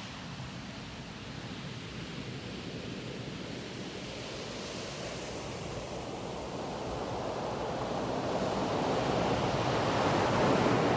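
Ocean surf: a steady wash of waves that swells louder over the second half, a wave building and cresting near the end.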